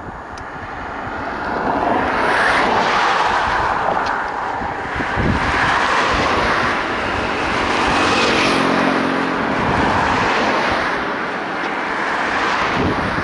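Painted Taiwan Railway electric multiple unit commuter train passing, a steady rushing rumble of wheels on rail that swells about two seconds in and holds, with a low hum of the traction motors for a few seconds in the middle.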